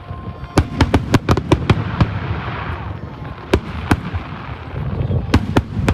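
Aerial fireworks shells bursting with sharp bangs: a quick run of about eight in the first two seconds, then two more, then three close together near the end.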